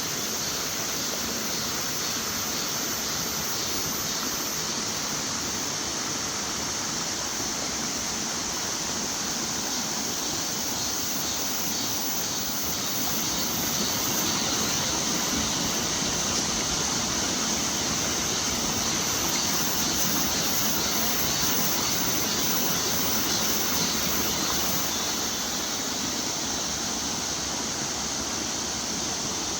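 A small mountain waterfall rushing steadily, a little louder for a stretch in the middle.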